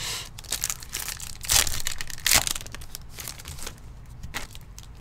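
A trading-card pack wrapper being torn open and crinkled by hand, a run of crackling rips with the two loudest about one and a half and two and a half seconds in, then quieter rustling.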